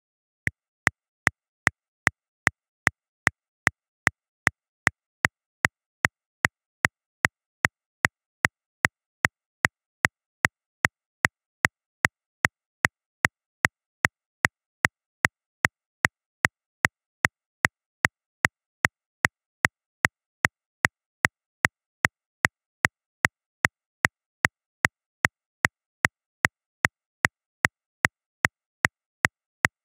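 Metronome clicking at a steady 150 beats per minute, about two and a half even clicks a second.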